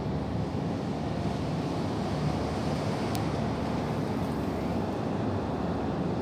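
Strong storm wind blowing steadily, buffeting the microphone with a low, even rumble.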